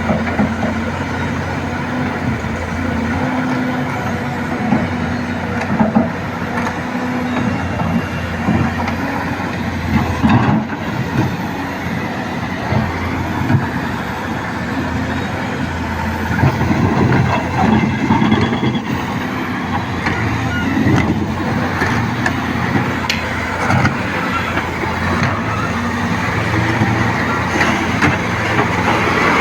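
Volvo backhoe loader's diesel engine running steadily under work, its pitch shifting up and down, with a few sharp metal knocks.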